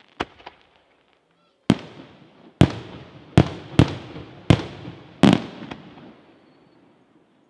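Aerial fireworks shells going off: a small crack at the start, then about seven sharp booms roughly a second apart, each trailing off in a rolling echo. It falls quiet near the end.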